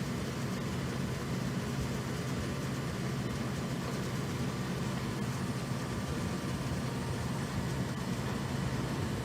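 Steady low mechanical drone, unchanging in level throughout.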